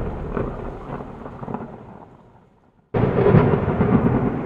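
Thunder sound effect: a rumble dying away to silence, then a second thunderclap breaking in suddenly about three seconds in and rumbling on.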